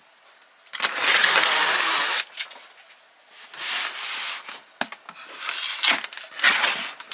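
Cardboard rubbing and scraping as a corrugated cardboard case is handled and its glued top flap is pried up with a knife blade. The noise comes in several rough bursts, the longest and loudest about a second in.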